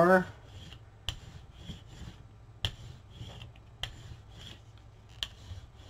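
Light rubbing and scraping of hands and tools working paint and paper on a gel printing plate, with four sharp taps spaced a second or more apart.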